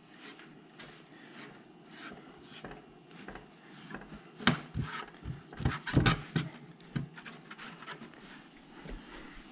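Wooden console boards being handled and knocked together: a scatter of light knocks and clatter, busiest in the middle few seconds.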